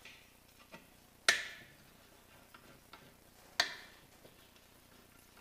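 Three sharp clinks of a hand tool knocked or set down against a loose tractor cab-door glass pane, each with a short ringing tail. The first, about a second in, is the loudest, and fainter ticks fall between them.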